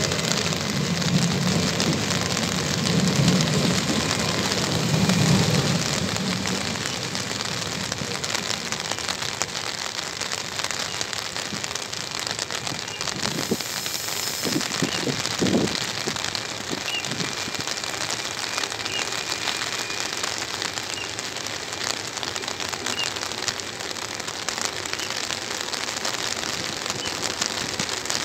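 Heavy rain hissing steadily. In the first few seconds an ETR103 Coradia Pop electric train runs past close by with a low, pulsing rumble that fades away. A few dull knocks come about halfway through.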